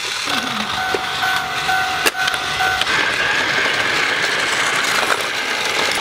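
Plarail DX Crossing Station toy playing an electronic sound effect: a beeping tone, broken into short pulses, for about two and a half seconds with a click near its end. It is followed by a steady mechanical whir from the battery-powered toy running.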